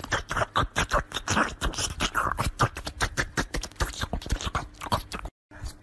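Kitten sucking and chewing on a finger: quick, wet smacking clicks, several a second, close to the microphone. They stop abruptly near the end.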